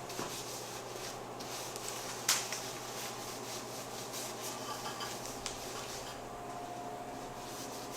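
A rag rubbing and wiping over bare metal to clean off grease and grime before priming, over a steady low hum. There is one sharp knock a little over two seconds in.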